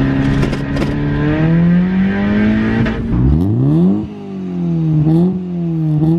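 Honda Civic EJ9's four-cylinder engine. It runs steadily under way for about three seconds with its revs creeping up, then is revved sharply, the revs falling back and blipped again about five seconds in while the exhaust puffs smoke.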